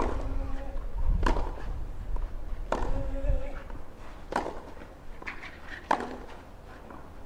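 Tennis rally: five racket strikes on the ball about one and a half seconds apart, with a player's short grunt after two of the shots.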